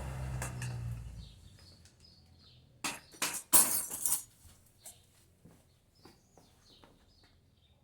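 Background music fading out, then several sharp clinks and knocks of hard parts being handled about three to four seconds in, followed by a few lighter clicks, with faint bird chirps.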